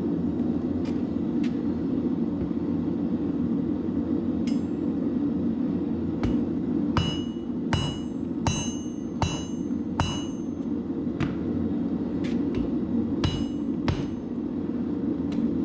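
Hammer blows on steel over an anvil while forging a blade from leaf-spring steel: about a dozen irregular strikes, the ones in the middle ringing clearly. A steady low rumble runs underneath.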